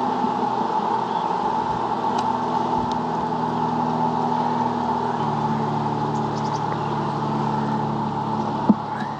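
Honeybees buzzing as a steady, dense hum around an open hive, the low drone shifting lower about five seconds in. A single sharp knock comes near the end.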